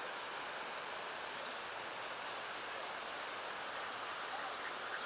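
Steady, even rushing outdoor background noise with no distinct events, recorded on an external boom mic.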